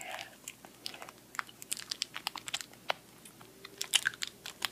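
Small plastic sour-candy pouch crinkling in the fingers with wet mouth clicks and smacks as the candy is squeezed and sucked from it: a string of short, irregular clicks and crackles, a few louder ones near the end.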